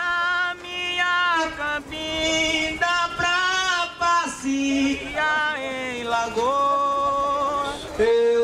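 Unaccompanied singing of a maracatu verse in long held notes that slide from one pitch to the next, with the drums silent.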